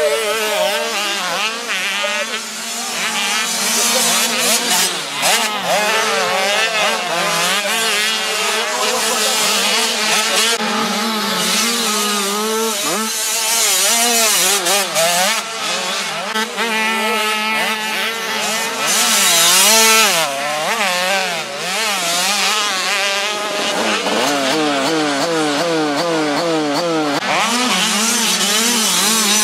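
Several youth motocross bikes' engines revving up and down, overlapping. The pitch rises and falls over and over as the riders open and close the throttle through the corners and straights.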